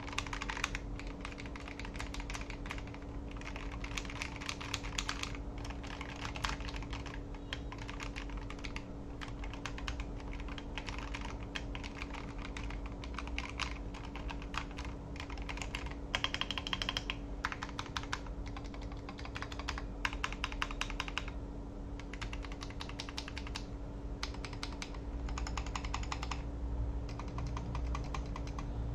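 Typing on a custom mechanical keyboard fitted with thick PBT double-shot ASA-profile keycaps (AKKO Carbon Retro): a typing sound test. Fast runs of key clicks come in bursts with short pauses between them, over a faint steady hum.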